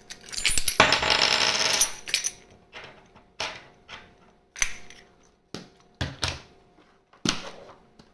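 A pile of POG discs and metal slammers clattering as they are tipped together into a container, with some metallic ringing, followed by single discs being set down in sharp clacks about once a second.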